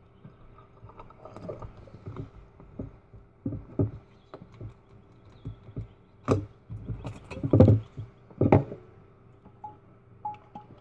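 Irregular knocks, taps and rattles of a glass bottle with a green plastic top being handled as a mixture is poured into it, with three louder knocks in the second half.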